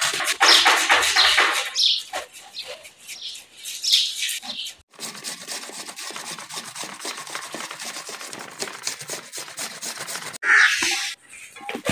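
Onion being grated on a hand grater: a steady run of quick rasping strokes. Birds chirp a few times over it.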